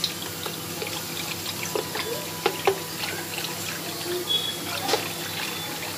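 Wooden dal ghutni (hand churner) stirring gram flour into buttermilk in a steel bowl to work out the lumps. Liquid sloshes and splashes with many small clicks, and there are a couple of sharper knocks about two and a half seconds in.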